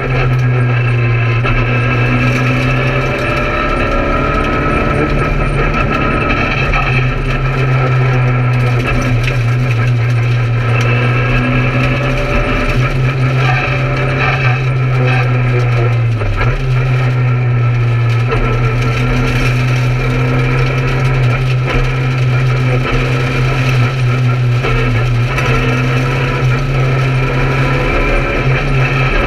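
Peugeot 208 R2 rally car's 1.6-litre four-cylinder engine heard from inside the cabin, running hard at stage speed. The revs rise and fall through the gears, with a short dip about 16 seconds in.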